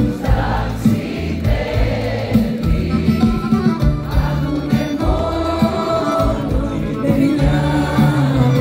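Live Greek popular music from a band with accordion and bouzouki, with singers and many voices singing together.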